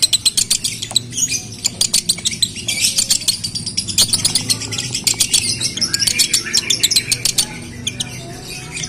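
Male Fischer's lovebird singing a long, unbroken 'konslet' chatter: rapid high chirps and clicks, many a second, mixed with short whistled glides. It is the excited song of a male in breeding condition.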